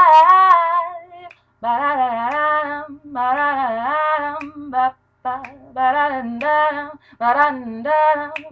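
A woman singing a cappella in an improvised jazz voice: several sung phrases of held, wavering notes with short breaks between them.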